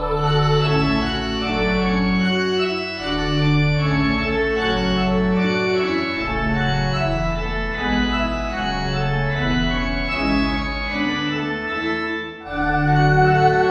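Church organ playing a slow piece in held chords over a moving bass line. The music breaks off briefly about twelve seconds in, then comes back in with a fuller, louder chord.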